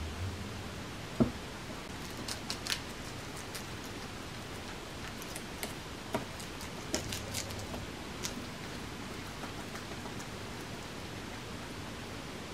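Guinea pigs biting and chewing a crisp lettuce core, sharp crunchy bites in two clusters over a steady background hiss, with a single dull knock about a second in.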